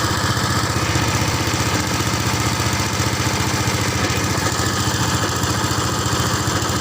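A small engine running steadily at an even speed, with a fast, regular pulsing.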